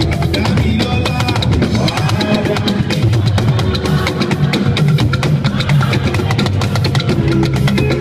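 Yoruba hourglass talking drums struck in a fast, steady rhythm as part of live band music, with low sustained notes underneath.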